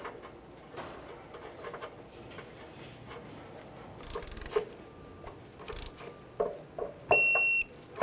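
Faint scattered clicks of a wrench and socket tightening a new oxygen sensor into the exhaust pipe, then about seven seconds in a single half-second high electronic beep from a digital torque wrench, the signal that the sensor has reached its 35 ft-lb torque setting.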